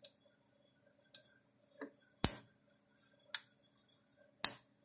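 Electric Shepherd ESM 200 fence energizer pulsing with its output dead-shorted from fence terminal to ground through pliers: five sharp snaps about a second apart, two of them louder. Each snap is one pulse of the charger.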